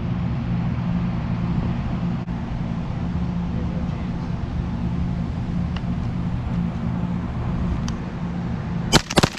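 Strong wind buffeting the microphone with a steady low rumble; about nine seconds in, a loud shotgun shot cracks out, the first of a run of sharp bangs.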